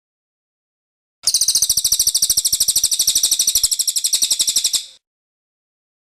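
A cililin songbird sings one rapid, even trill of high repeated notes, starting about a second in and lasting about three and a half seconds, then stops.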